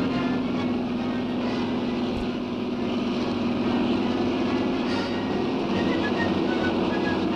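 A steady low mechanical drone with a noisy rumble.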